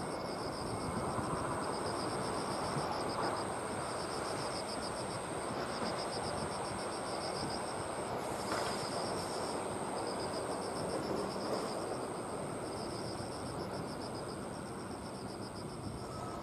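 Insects chirping in the grass: a pulsing chirp repeating in short trains and a steady high whine, over a steady rushing background noise.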